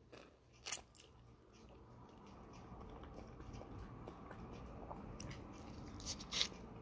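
Biting ripe mango cubes off a scored 'hedgehog' mango half and chewing the soft flesh. There are short sharp mouth sounds about a second in and again near the end.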